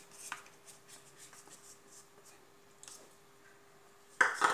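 Faint scraping and tapping of a silicone spatula against a small plastic bowl. About four seconds in comes a sudden loud clatter as the bowl and spatula are set down on a steel plate.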